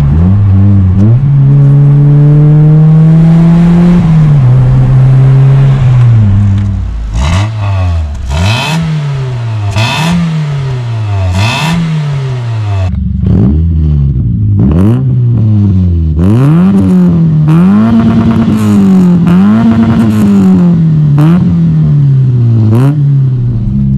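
Mitsubishi Lancer CE's four-cylinder engine heard through its exhaust. In the first few seconds it accelerates from inside the cabin, its pitch climbing steadily, then dropping once at a gear change. After that it is revved repeatedly while parked: about four slower blips through the stock exhaust, then, after a cut, about eight quicker blips through a cheap cannon muffler with the resonator deleted.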